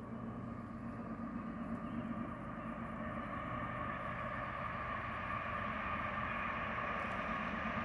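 Distant CSX diesel locomotives approaching under full throttle: a steady engine drone that grows slowly louder as the train nears.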